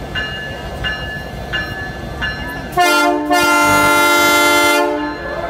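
Canadian Pacific diesel locomotive running, with its bell ringing about once every 0.7 s. About three seconds in, the locomotive's multi-chime air horn sounds a short blast and then a long one of about a second and a half, as the train departs.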